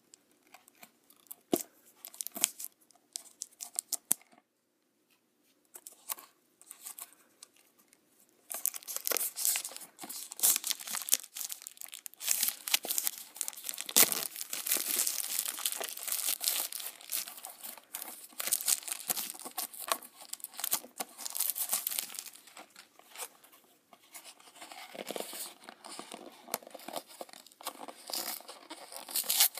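Scissors snipping the plastic shrink-wrap on a blind box, a few sharp separate clicks. From about eight seconds in, the clear cellophane wrap is torn off and crinkled continuously. Near the end come softer, patchier noises of the cardboard box being handled and its flap opened.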